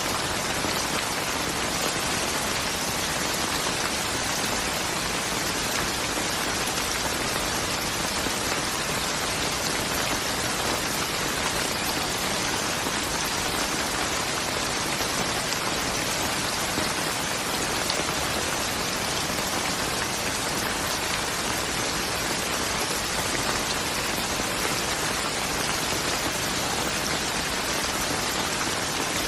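Steady rain falling on a surface, an even hiss of drops without pauses or thunder.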